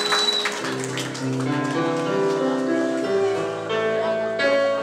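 Live band starting a slow song: held notes and chords that shift every second or so.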